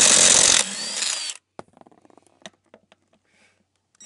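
Impact wrench running in reverse on a wheel lug nut, cutting off about half a second in and briefly winding down. After that come faint scattered clicks and taps of the socket and nut.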